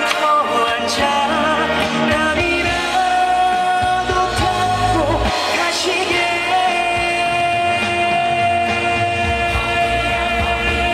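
A slow trot ballad performed live: a male singer holds long, wavering notes over a backing band.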